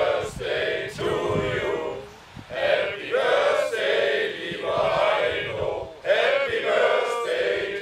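A group of voices singing together in chorus, in sung phrases a few seconds long with short breaks between them.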